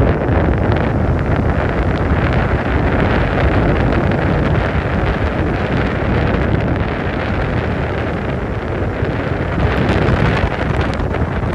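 Wind blowing across the microphone: a loud, unsteady rumbling roar.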